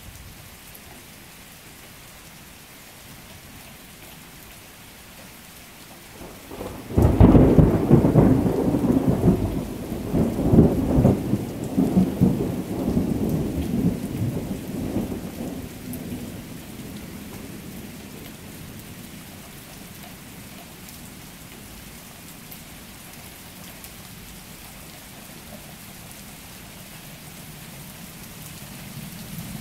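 Thunderstorm: steady rain falling, then a loud clap of thunder about seven seconds in that rolls on in several waves of rumbling for around nine seconds before dying away under the rain.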